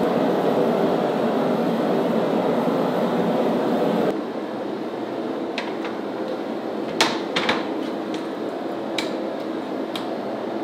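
Two-burner propane gas forge running with a steady rushing noise for about four seconds, then cut off abruptly. A quieter steady hum follows, with about six short sharp metallic knocks as a red-hot steel bar is handled and bent on a steel workbench.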